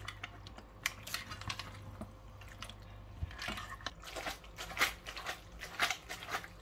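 Metal tongs tossing linguine with mussels in sauce in a pan: irregular wet squelches and light clicks, sparse at first and busier over the second half.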